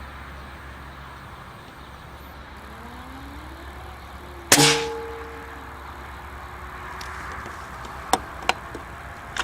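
A single shot from an Air Arms S410 pre-charged pneumatic air rifle: one sharp, loud crack about halfway through with a brief ringing tail. A few light clicks follow near the end.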